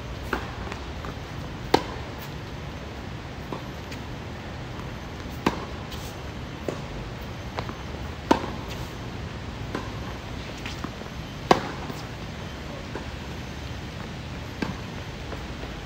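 Tennis rally on a hard court: sharp pops of the ball off racket strings, four loud strikes roughly every three seconds, with fainter hits and ball bounces between them, over steady background noise.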